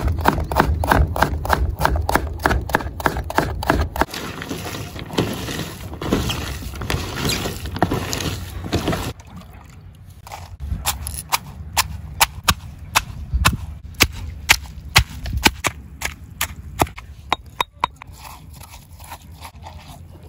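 Knife chopping vegetables in quick, regular strokes, about four a second. About halfway through the background drops and the chops go on sharper and more spaced out.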